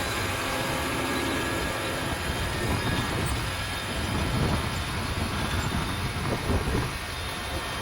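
TimberKing 1400 portable band sawmill running steadily, its engine-driven band blade sawing through a maple log.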